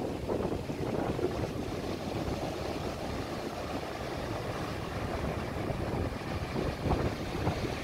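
Surf breaking on the beach, a steady rush, mixed with wind buffeting the microphone.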